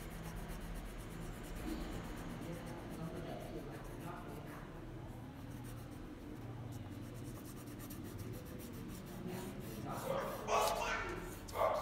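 Colouring on paper: a yellow colouring stick rubbed over the sheet in quick back-and-forth strokes, a steady rubbing. Two short louder sounds break in near the end.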